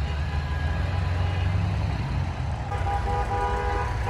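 Pickup trucks and cars driving past in a line, with steady engine and tyre rumble, and car horns honking. Near the end a horn sounds in a quick series of short beeps.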